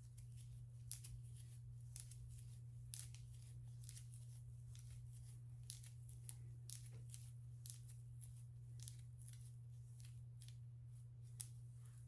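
Faint, irregular crisp crackles and rustles of hair being worked through by hand while detangling, over a steady low hum.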